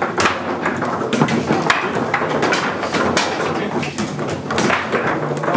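Foosball game in play: the ball knocking against the men and the table walls, with rods clacking and sliding, in a quick, irregular run of sharp knocks.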